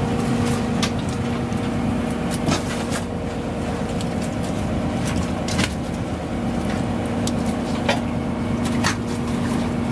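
Steady hum of a small fishing boat's machinery while a gill net is hauled aboard, with sharp knocks and clacks about half a dozen times.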